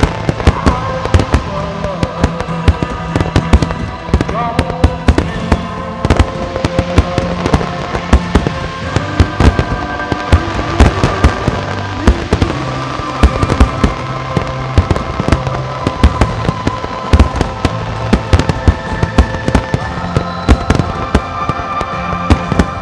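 Fireworks display with many aerial shells bursting in quick succession, a steady stream of sharp bangs, over a music soundtrack with held notes and a moving bass line.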